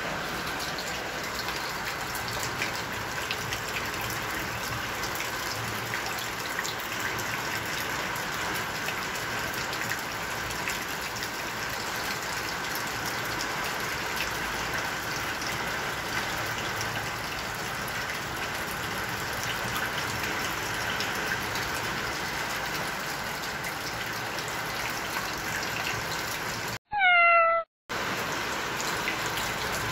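A steady hiss of rain-like water noise. Near the end it cuts out abruptly for about a second, and in that gap a single loud kitten meow sounds.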